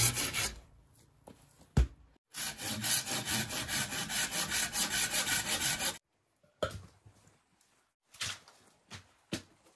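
Hand saw cutting through a wooden pole in quick, even back-and-forth strokes. The sawing pauses with a single sharp knock about two seconds in, resumes, and stops abruptly about six seconds in, followed by a few scattered light knocks and rustles.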